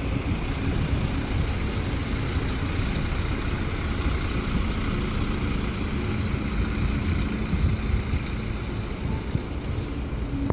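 Diesel multiple unit, a DB Alstom Coradia LINT 41, running past and pulling away: a steady engine drone with rail noise, with wind buffeting the microphone.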